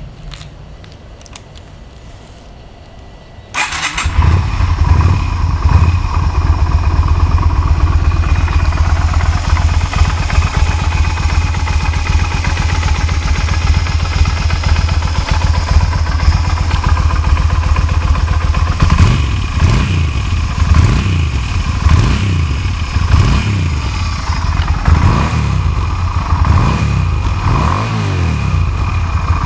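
Yamaha SRV250's air-cooled V-twin engine starting up: it fires and catches about three and a half seconds in, then idles steadily. In the last third it is revved in a series of short throttle blips, each rising and falling.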